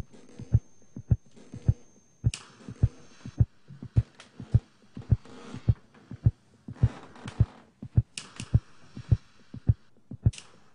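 Low, heartbeat-like throbbing pulse, a double beat a little under twice a second and very regular, with short hissing swells rising over it several times.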